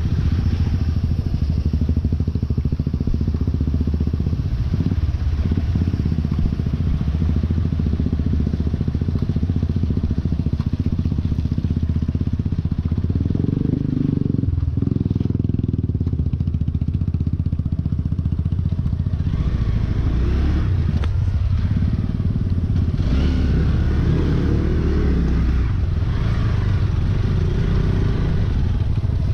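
Motorcycle engine running steadily at low revs while the bike rides slowly over a rough, rocky dirt trail, with rougher bursts of noise from the road surface now and then.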